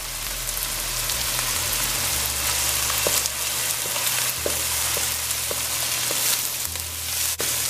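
Diced onion and green onion sizzling in hot oil with small dried shrimp in a nonstick wok, a steady frying hiss. A wooden spatula stirs through it, with a few faint light scrapes and ticks in the middle.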